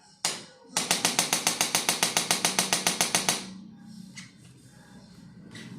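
A single sharp click, then a fast, even run of about twenty mechanical clicks, roughly eight a second, lasting about two and a half seconds and stopping suddenly.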